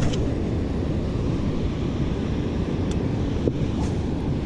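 Wind buffeting the microphone: a steady low rumble, with a couple of faint clicks about three seconds in.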